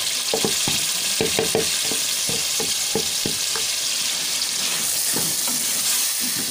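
Soaked mash dal (split urad) sizzling as it goes into hot oil and fried masala in a metal pot. A wooden spoon stirs and scrapes through it, with a quick run of clicks and knocks against the pot over the first few seconds.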